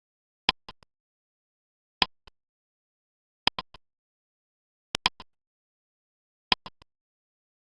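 A countdown-timer ticking sound effect: five sharp ticks, each followed by a fainter double click, about one every second and a half, with dead silence between them.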